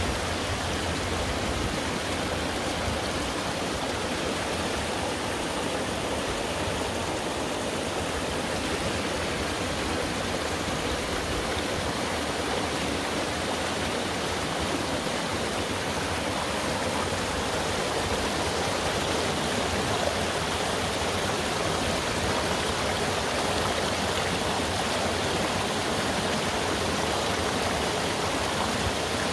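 Mountain valley stream flowing, a steady even rush of water.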